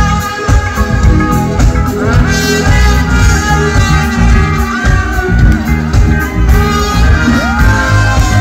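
Live band playing loud, dense music, with a full drum kit and electric guitar over a heavy low end. From about seven seconds in, a lead line plays sliding, bending notes.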